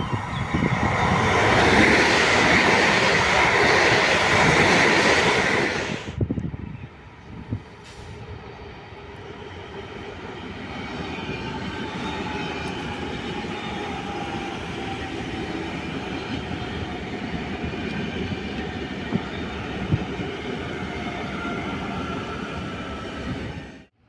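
A train passing through the station at speed, a loud rushing rumble that drops away sharply about six seconds in. After that a quieter, steady train rumble continues, with faint falling whines and squeals from the wheels and running gear, until the sound cuts off abruptly near the end.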